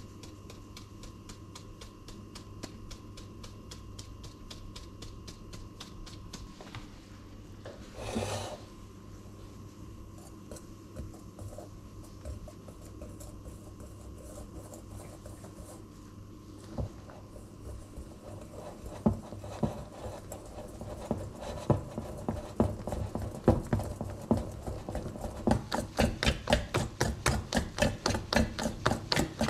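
Flour shaken through a mesh sieve with faint rapid ticks, with a brief rustle about eight seconds in. Then a wire whisk beats batter in a metal bowl, the strokes growing louder and faster to about four a second near the end, over a steady low hum.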